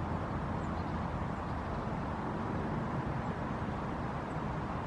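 Steady distant road traffic: a low, even rumble with no breaks.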